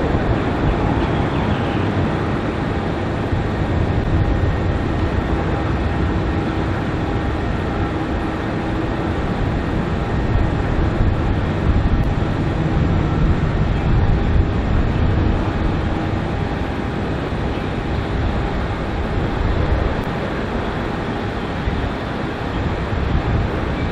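Boeing 777 twin-engine jet landing: a loud, steady jet rumble with a faint whine early on.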